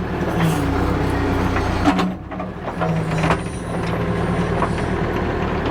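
Backhoe engine running steadily under work, with a few knocks and clicks from the bucket digging and a brief dip in loudness about two seconds in.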